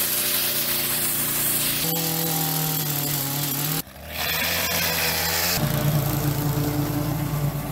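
Small gasoline engines of power lawn equipment running, in a run of short clips cut sharply one into the next, about two, four and five and a half seconds in. The pitch sags slightly in the second clip. In the last clip a walk-behind mower's engine is running as it is pushed through grass.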